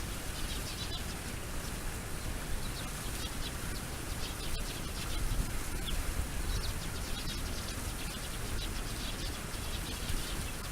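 Small birds calling back and forth with short, high chirps, coming in clusters every couple of seconds over a steady background of noise and low rumble.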